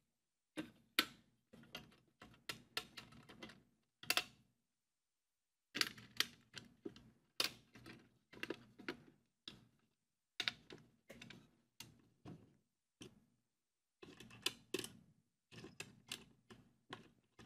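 Irregular light clicks and taps from hand-fitting a small brass hinge on a wooden box, with short pauses between bursts.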